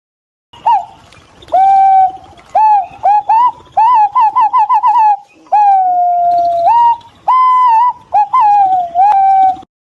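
Green pigeon calling: a string of loud whistles. Some are short and hooked, some held and sliding down, with a quick run of about eight notes around the middle.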